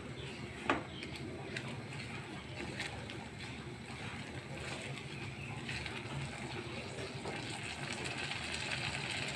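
Yogurt and spice masala frying in a nonstick pan while a silicone spatula stirs it. There is a soft sizzle with scattered scrapes and taps, and one sharper tap about a second in. The sizzle grows louder near the end, over a steady low hum.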